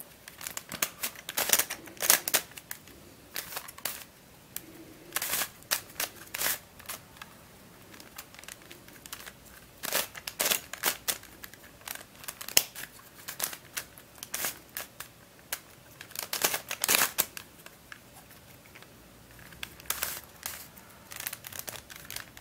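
Plastic layers of a Dayan + MF8 five-layer pentahedron twisty puzzle clicking and clacking as it is turned quickly by hand to scramble it, in irregular runs of clicks with short pauses.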